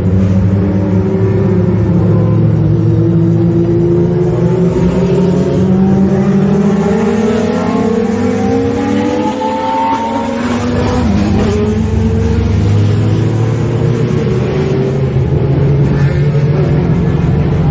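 Formula 1 car engines running at high revs, their pitch climbing slowly for about ten seconds, then falling sharply before steadying again, over a constant deep drone.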